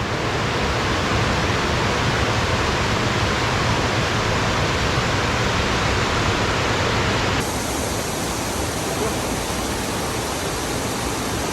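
Waterfall and creek rapids rushing close by in a steady roar of white water, turning brighter and hissier about seven and a half seconds in.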